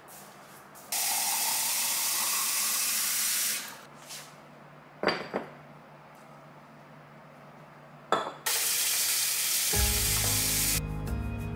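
Kitchen faucet running into a glass vase for about two and a half seconds, then a few hard knocks as glass is set down on the stone countertop. The tap runs again into a clear plastic tray, and background music comes in near the end.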